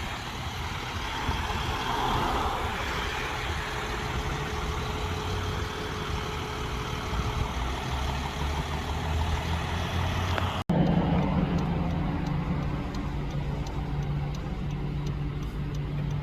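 Motor vehicle engine idling steadily under outdoor background noise. The sound changes abruptly about two-thirds of the way through, after which a steadier low hum is heard.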